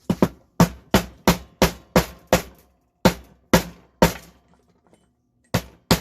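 Hammer blows on metal, about a dozen sharp ringing strikes at roughly three a second, with a short pause about three seconds in and a longer one near the end, knocking a stuck metal piece loose.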